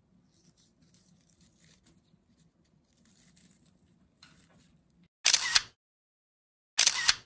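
Faint handling noises for about five seconds, then two loud camera shutter clicks about a second and a half apart, each a quick double snap like a DSLR's mirror and shutter.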